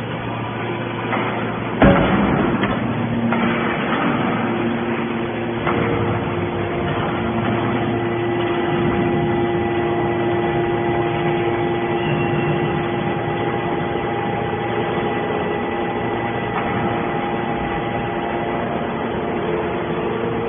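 Scrap-metal processing machinery running with a steady hum and whine, and one loud bang about two seconds in.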